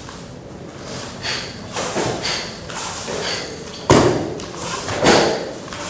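Karate kata performed barefoot on foam mats: a run of short, sharp swishing strokes, then two loud thuds about four and five seconds in.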